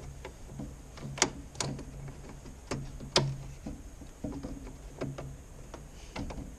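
Sharp metallic clicks and taps from channel-lock pliers working a hose clip on the radiator, about eight scattered strikes, two of them louder near the middle.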